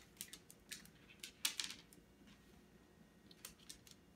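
Two small dogs being hand-fed on a tile floor: faint, scattered light clicks and ticks, with a quick run of them about a second and a half in and a few more near the end.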